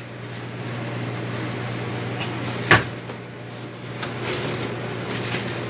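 A single sharp knock, like something hard being set down or shut, about two and a half seconds in, over a steady low hum.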